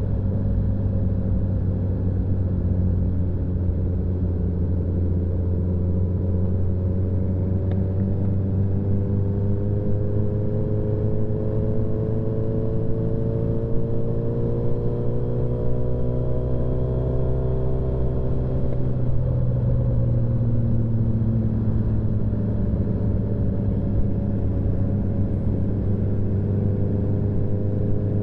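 Motorcycle engine running while riding, its note climbing slowly as the bike speeds up, then dropping about two-thirds of the way through and holding steady.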